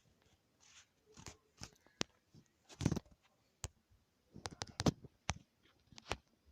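Irregular taps, clicks and short rustles of a phone being handled and texted on close to the microphone, with a louder cluster about three seconds in and another just before five seconds.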